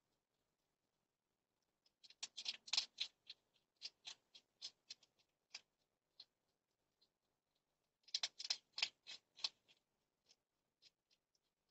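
Hedgehog crunching dry food from a bowl: a quick run of sharp crunchy clicks about two seconds in and again about eight seconds in, with single clicks between.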